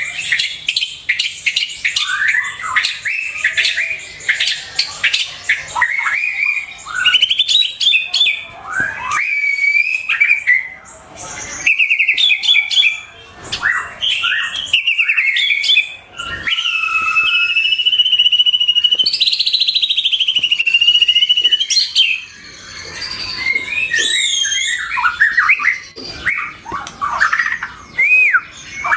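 White-rumped shama (murai batu) singing a long, varied song of quick chirps, sweeping whistles and rapid trills, with a sustained buzzing trill lasting several seconds about two-thirds of the way in.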